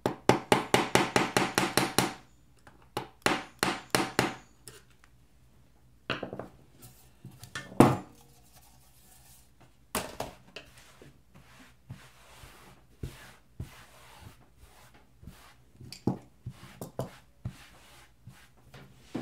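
Hand tool clicking and knocking against the aluminium top case of a 2015 MacBook Pro as the keyboard rivets are worked out. Two quick runs of clicks, about eight a second, come in the first few seconds, then scattered knocks and ticks, the loudest about eight seconds in.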